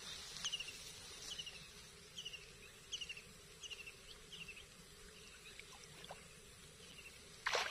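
A small animal's chirping call repeats about every three quarters of a second, each call a quick run of notes stepping down in pitch, over faint outdoor background noise. A sudden loud noise comes just before the end.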